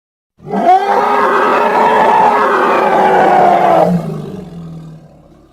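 Triceratops roar sound effect: one loud, pitched roar starting about half a second in and held for about three and a half seconds, sinking slightly in pitch, then breaking into a quieter, lower tail that fades away near the end.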